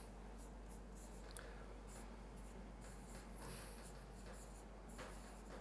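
Faint taps and scratches of a stylus writing on an interactive whiteboard screen.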